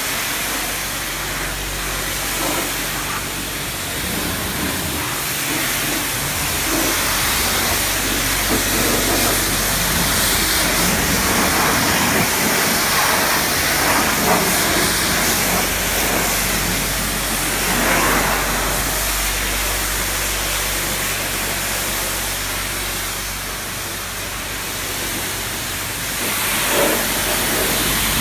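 Pressure washer jet spraying water onto a car's wheel and bodywork: a steady hiss that swells and eases as the jet moves, over a low steady hum.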